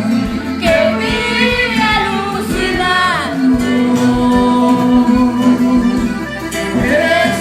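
Music with a voice singing a melody, including one long held note in the middle.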